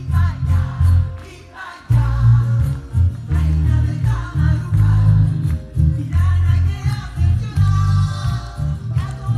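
Live folk song heard through a concert PA: a woman singing over an amplified band with keyboard and a heavy, pulsing bass. The band drops out briefly about a second and a half in, then comes back in full.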